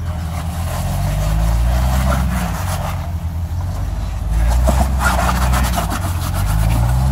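Off-road vehicle's engine revving in surges as it crawls up a rock ledge, climbing in pitch twice. It is joined by a run of crackles and knocks around the middle.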